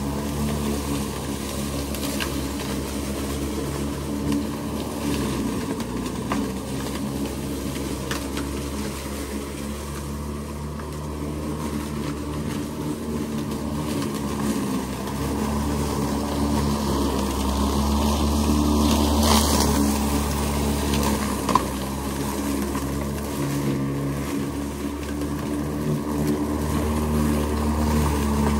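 Makita XML11CT1 36-volt (two 18-volt battery) self-propelled lawn mower running steadily while cutting grass, its hum shifting slightly in pitch as the load changes.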